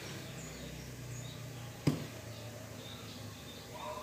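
A single sharp knock about two seconds in, the plastic jug set down on the table, over faint, scattered bird chirps.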